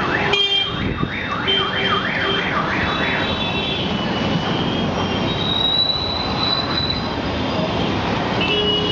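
Street traffic with an emergency vehicle's siren sweeping quickly up and down, about two sweeps a second, which stops about three seconds in. Short car-horn beeps sound over the traffic noise, one more near the end.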